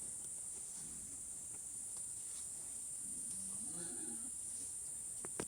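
A farm animal gives one short, wavering call about halfway through, over a steady high-pitched drone. A sharp click comes near the end.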